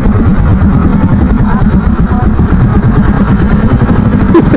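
Motor scooter engine running at riding speed, mixed with heavy wind and road rumble on the microphone. A short knock comes near the end.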